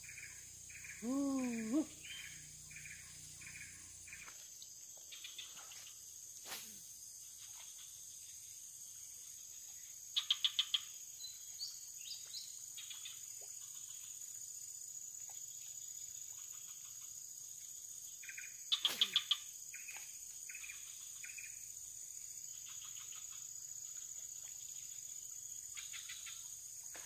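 Steady high-pitched drone of insects, such as crickets, in a swamp, with scattered chirping calls. A couple of short bursts of sharp clicks come about ten and nineteen seconds in.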